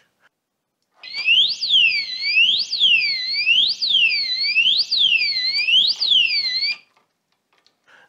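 REAPP alarm disc lock's built-in siren going off as the armed lock on the motorcycle's brake disc is handled. It is a loud, high wailing tone sweeping up and down about once a second, starting about a second in and cutting off after about six seconds.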